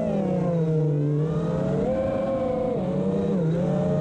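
Emax Hawk 5 racing quadcopter's brushless motors and propellers whining in flight, the pitch shifting up and down with the throttle.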